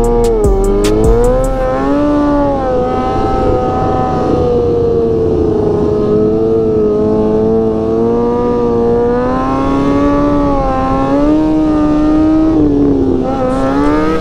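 Motorcycle engine running at high revs on the freeway, its pitch rising and falling gently and continuously as the throttle is worked.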